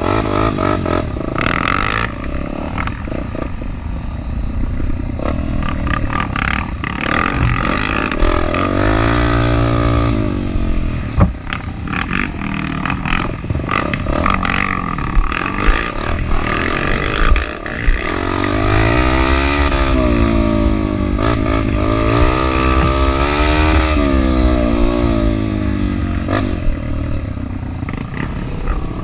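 Off-road trail motorcycle engine revving up and down as it rides, its pitch rising and falling repeatedly, with scattered knocks and clatter.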